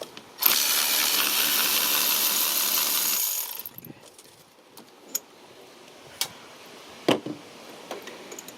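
A power tool runs in one steady, loud whirring hiss for about three seconds while a spark plug is being spun out of the engine. It then stops, and a few sharp metal clinks follow.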